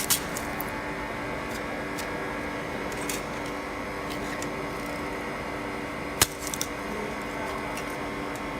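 Steady hum of an LCD freezing separator's refrigeration unit running to keep its freezing plate cold, with a few light clicks and taps, the loudest about six seconds in.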